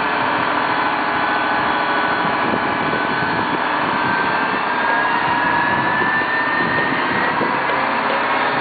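Boom truck running steadily, with a high whine over the engine sound that drifts slightly up and down in pitch.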